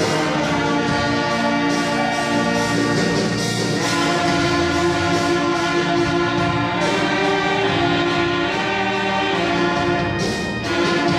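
Church orchestra with brass playing a hymn in sustained, full chords.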